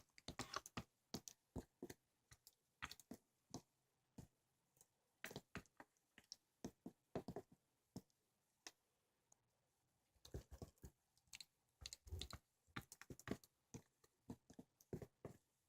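Faint, irregular clicks, taps and short scrapes of small objects being handled on a hard surface, coming in clusters with short pauses between them.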